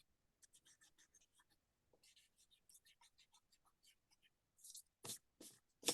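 Faint, quick strokes of a drawing tool scratching on paper, one after another, then three louder strokes or knocks near the end.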